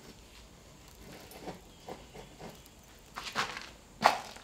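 Quarter-inch steel rod being worked into a coal forge fire for another heat: soft crunching and scraping of the coals, with two sharper scrapes about three and four seconds in.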